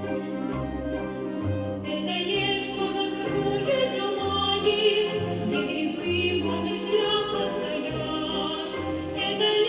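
Russian folk-instrument orchestra playing a song over an even, alternating bass line, with singing voices over the ensemble; the sound grows fuller about two seconds in.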